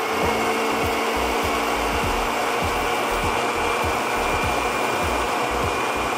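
Countertop blender running steadily at full speed, puréeing a basil sauce, its motor holding one even pitch.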